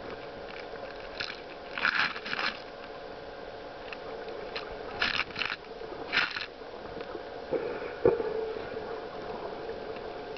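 Underwater sound picked up through a camera's waterproof housing: a steady muffled hum with several short scraping, crackling bursts that come and go.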